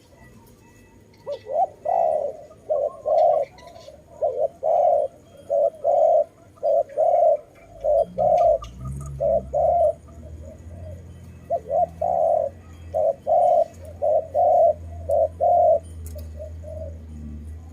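Spotted dove cooing: a long run of short, mellow coo notes repeated in phrases. A steady low rumble joins about halfway through.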